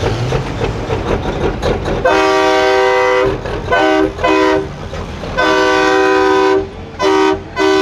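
A pulling semi truck's train-style air horn with several tones sounding together. It gives a long blast about two seconds in, then two short toots, another long blast and two more short toots. A diesel engine rumbles underneath at the start.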